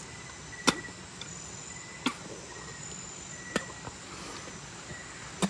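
Night-time insect chorus: high, steady trills that come and go over a constant hiss. Four sharp clicks are evenly spaced about a second and a half apart.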